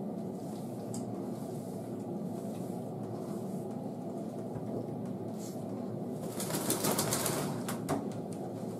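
Hands squeezing and working conditioner through a Shih Tzu's soaked long coat, giving wet squelching and rustling. It grows louder and more crackly for a second or two about six seconds in, over a steady low background noise.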